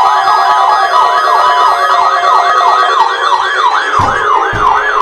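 Weather alert radio alarms sounding together during an Emergency Alert System test: a loud, fast warbling siren-like alarm rising and falling a few times a second, over steady alert tones that fade out after about three seconds. A few low thumps come in near the end.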